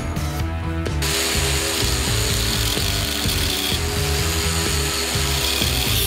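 Angle grinder cutting steel held in a vise, its rasping hiss starting about a second in and growing brighter near the end, over background music.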